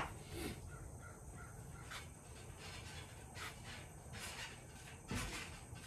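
Quiet workshop, with a few faint knocks and rustles as pine strips and a glue bottle are handled and glue is squeezed onto the wood.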